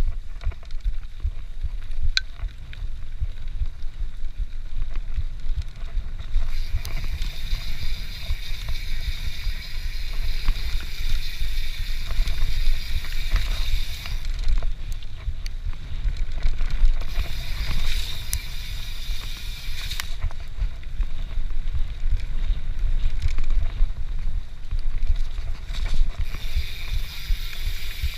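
YT Capra mountain bike riding a dirt forest singletrack, heard from a camera mounted on the bike: a steady low rumble and rattle from the tyres and frame over the rough trail, with wind on the microphone. A high buzzing comes and goes in several stretches, and a few sharp ticks stand out.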